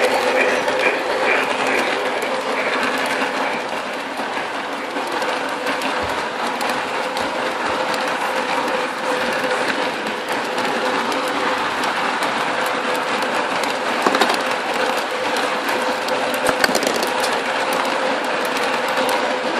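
Lionel O gauge model train running on its track, heard close up from on board: a steady electric-motor hum over the rumble of the wheels, with occasional clicks.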